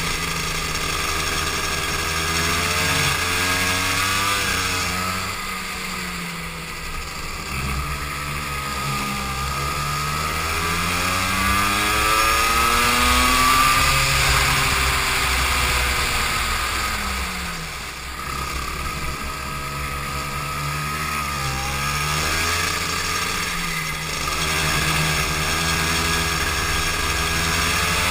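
Go-kart engine heard from on board during a race, its pitch climbing as it revs up and falling away again several times as the kart accelerates along straights and slows for corners.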